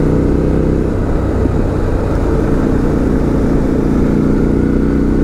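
Suzuki V-Strom 1050XT's V-twin engine running steadily while riding at cruising speed, with wind and road rush over it.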